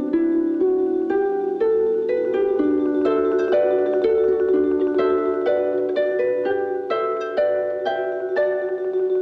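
Soundtrack music: a melody of plucked notes, about two a second, over a held low note.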